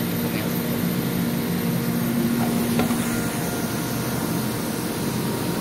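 PET bottle blow-moulding machine running: a steady hum and hiss, with a low steady tone that cuts off about three seconds in, just after a single click.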